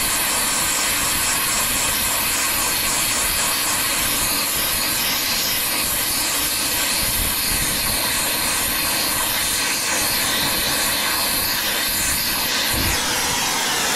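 Acetylene brazing torch flame hissing steadily as it heats a copper refrigerant line joint on an evaporator coil to unbraze it.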